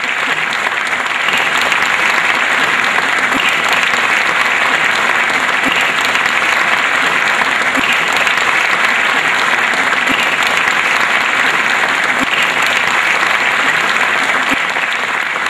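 Audience applauding: many hands clapping in a dense, steady wash that keeps going without a break.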